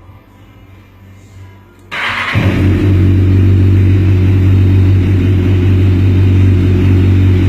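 Honda CBR1000RR's inline-four engine starting about two seconds in, then running steadily and loud through an Akrapovic exhaust.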